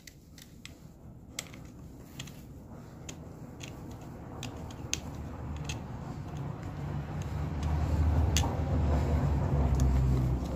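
Scattered light clicks and taps of metal parts being handled, over a low rumble that grows louder in the second half.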